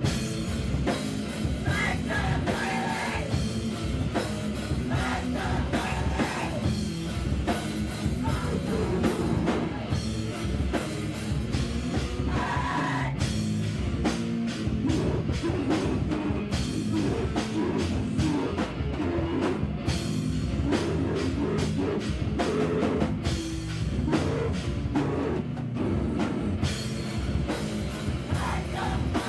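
Live heavy rock or metal band playing loud and dense, with pounding drums, distorted guitar and bass, and stretches of shouted vocals.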